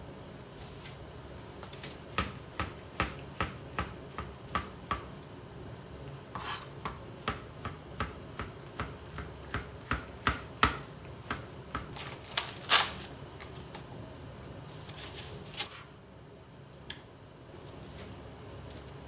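Kitchen knife slicing shiitake mushrooms on a cutting board: a steady run of knocks, about two a second, as the blade comes down through each cap onto the board, stopping a few seconds before the end.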